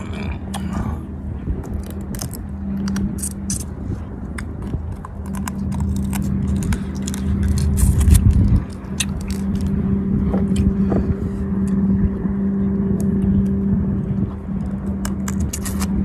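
Sharp clicks and cracks of prawn shells being broken and peeled by hand, with chewing, over a steady low motor hum.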